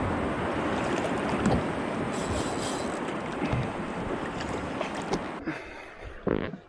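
Wind buffeting the microphone over water sloshing and lapping against a jet ski's hull in a swell, dying down near the end with one last short rush.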